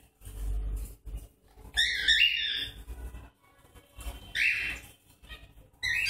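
Caged parrots squawking: three short harsh calls, the longest about two seconds in, another about four and a half seconds in, and one more at the very end. A low rumble comes near the start.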